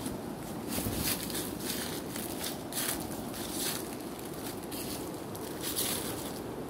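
Footsteps and rustling of leaves, with irregular crackles about every half second, over a steady low rush of wind on the microphone.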